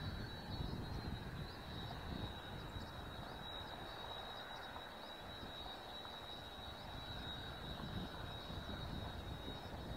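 Distant drone of a C-130H Hercules's four Allison T56 turboprop engines as it climbs away after takeoff: a steady low rumble with a steady high whine over it.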